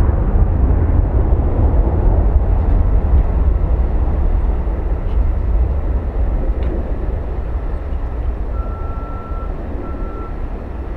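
Boeing 737-700's twin CFM56-7B turbofan engines at takeoff thrust, a loud low rumble as the jet rolls down the runway and lifts off. The sound grows gradually quieter in the second half as the aircraft climbs away.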